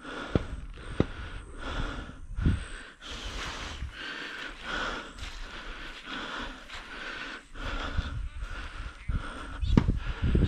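A man breathing heavily in and out, with low thumps and rustling from his steps through grass.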